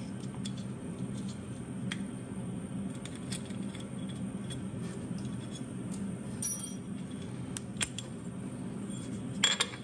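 Light metallic clicks and taps of an Allen key worked through holes in an aluminium jig plate, pushing a machined aluminium knife handle loose, over a steady low hum. A sharper pair of clicks comes near the end.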